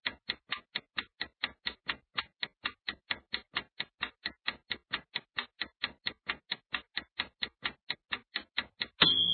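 Countdown timer sound effect: clock ticking, about four ticks a second, then a short high-pitched ring near the end as time runs out.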